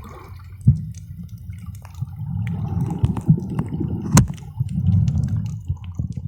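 Muffled underwater water noise: a low rumble of moving water that swells and fades, with scattered sharp clicks and ticks, the loudest about four seconds in.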